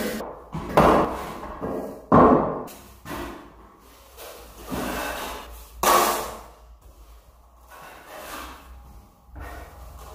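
A 14-inch steel finishing trowel clanking and scraping against a metal hawk and a bucket rim as drywall joint compound is scooped up and worked on the hawk. The sounds are a string of irregular sharp scrapes and knocks, the loudest about a second, two seconds and six seconds in.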